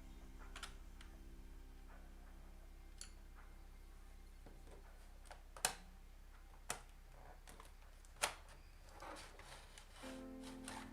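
Scattered small clicks and taps, three sharper ones between about five and a half and eight and a half seconds in, from a screwdriver and small screws handled on a laptop's plastic case, over faint background music.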